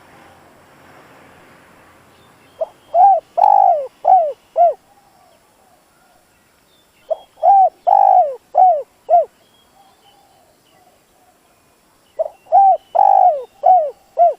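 Spotted dove (decoy bird) cooing: three phrases of about five low coos each, a few seconds apart, with the second note of each phrase drawn out longest.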